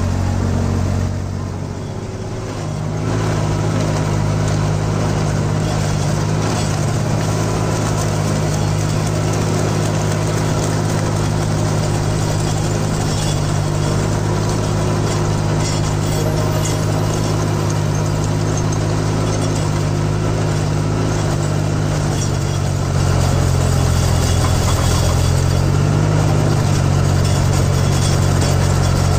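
Deutz-Fahr Agrolux 70 tractor's diesel engine running steadily under load, driving a rotary tiller through heavy soil. The engine gets louder for the last several seconds.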